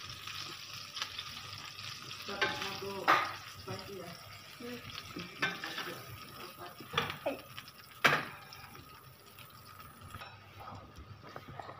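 Oil sizzling in a frying pan as stuffed green chillies are lifted out with metal tongs, with sharp clicks and taps of the tongs on the pan, the loudest about eight seconds in. The sizzling dies down near the end as the pan empties.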